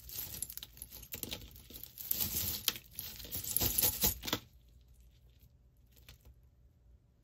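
A tangled pile of costume jewelry being sorted by hand: beads, chains and metal rings clinking, rattling and rustling. The handling stops about four seconds in, leaving only a few faint clicks.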